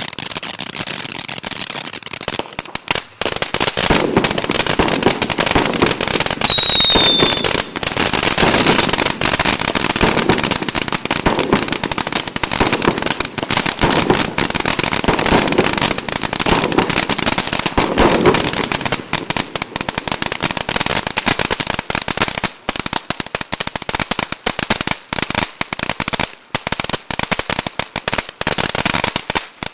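Premier Salute 'Gorshochek, vari!' (04203) ground fountain firework burning: a steady rush of sparks with dense crackling, thinning to scattered crackles over the last few seconds and stopping just before the end. A short falling whistle sounds about seven seconds in.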